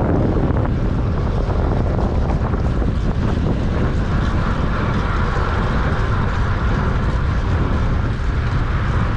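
Steady wind rush buffeting the microphone of a track-cycling rider's camera while riding at speed; a brighter hiss joins about four seconds in.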